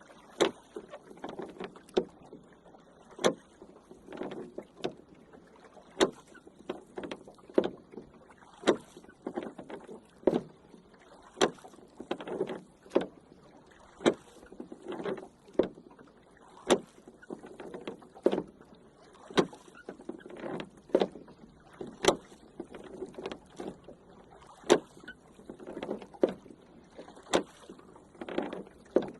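Rowing boat being rowed: a sharp wooden knock from the oars roughly every second and a half, with water swishing and splashing between the strokes.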